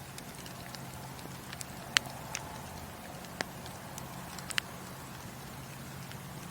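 Wood fire in a fireplace crackling: a steady low hiss of burning with scattered sharp pops, the loudest about two seconds in.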